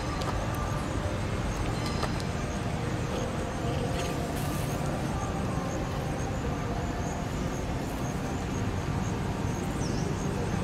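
Steady outdoor background noise: a low rumble with hiss, and faint high chirps repeating evenly throughout.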